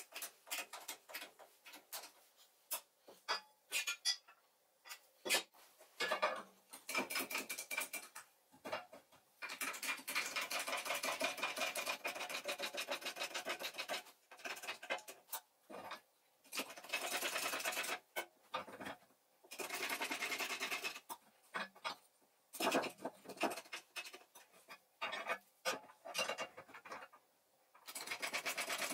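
Bottle hydraulic jack being pumped by hand, its handle strokes giving bursts of rapid clicking and rasping with short pauses between. Its ram is forcing a flat steel bar up between two pipe rollers, bending it.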